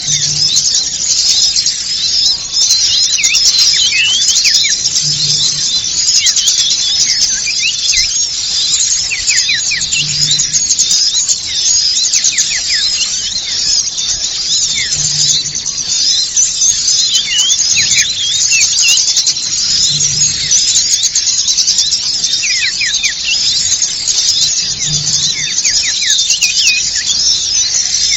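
Bird-lure recording of a noisy chorus of many small songbirds chattering and twittering at high pitch, full of quick downward-sliding calls, with a faint low pulse about every five seconds.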